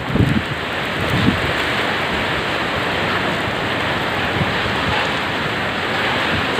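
Heavy wind-driven typhoon rain lashing the street in a steady hiss, with wind gusts buffeting the microphone briefly near the start.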